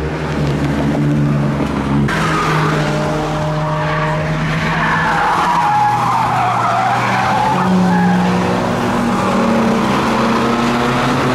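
Car tyres squealing as a car is driven through a corner at the limit of grip, the squeal wavering up and down in pitch through the middle, over a steady engine note.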